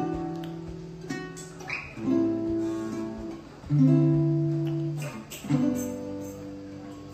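Acoustic guitar strummed slowly: a chord struck about every two seconds and left to ring out, the intro before a song.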